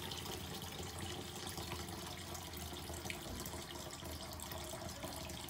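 Steady rushing background noise, even throughout, with a few faint ticks.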